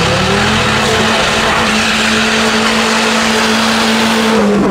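Car engine held at high revs for about four seconds while its tyres squeal, the revs rising at the start and dropping near the end.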